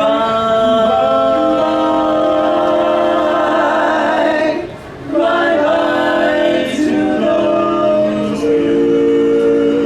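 A cappella vocal group singing long held chords in close harmony, barbershop style, with a short break about halfway through before the next chords.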